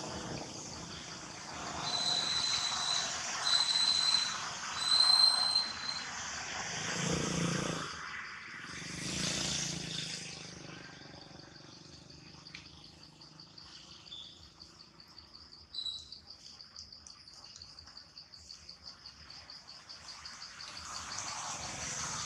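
Forest insects trilling steadily at a high pitch, becoming a fast pulsing trill in the second half, with a few short high chirps in the first few seconds and a brief rustle partway through.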